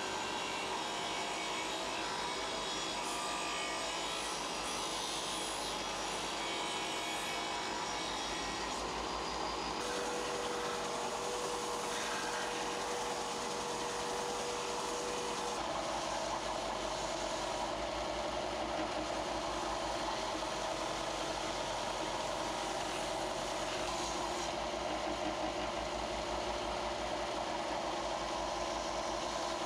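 A power tool running steadily while grinding down a knife handle's metal pins and wood, its tone changing a couple of times as the work is pressed on.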